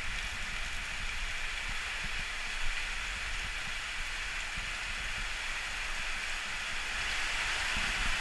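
Heavy rain pouring down on a flooded street, a dense, steady hiss.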